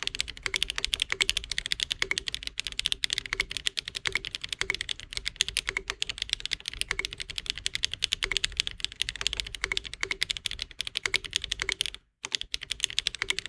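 Fast, continuous typing on a custom mechanical keyboard fitted with HMX (SPM) Pebble switches in an unfoamed build: sharp, clacky, fairly high-pitched keystrokes. The keystrokes break off briefly about twelve seconds in, then resume.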